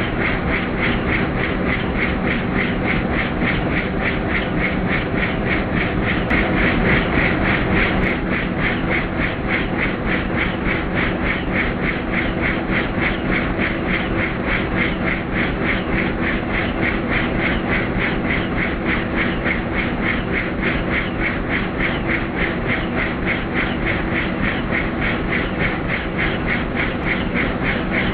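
Helicopter in flight, its engine and rotor running steadily with a fast, even beat of the rotor blades.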